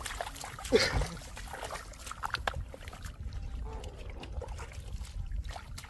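Splashing and sloshing in shallow muddy water, with many small clicks and slaps, and a short voice-like cry falling in pitch about a second in.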